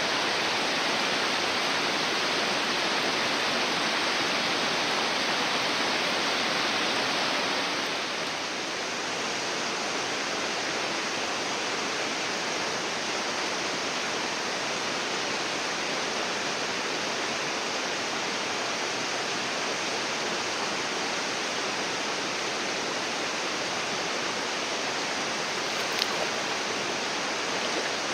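Mountain stream rushing steadily over rocks, stepping slightly quieter about eight seconds in. A single sharp click near the end.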